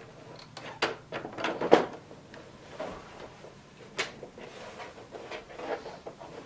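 Plastic top case of a Xerox Memorywriter typewriter being worked onto the base and snapped onto its clips: scattered plastic clicks and knocks, a cluster about a second in and another sharp one near four seconds.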